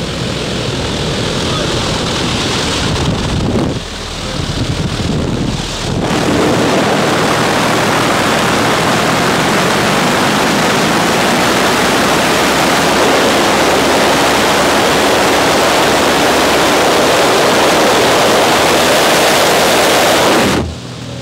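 A light aircraft's engine drones over rushing air at the open door. From about six seconds in, a loud, steady rush of wind buffets the microphone, and it cuts off abruptly near the end.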